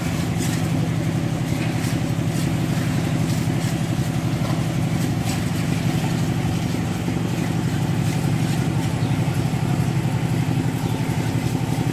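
A small engine running steadily at one constant speed, with faint scattered clicks over it.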